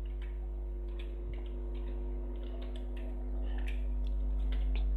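Computer keyboard typing: irregular key clicks over a steady low electrical hum.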